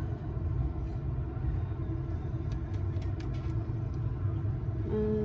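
Low, steady rumble of a nearby motor vehicle's engine, with a few faint clicks about halfway through.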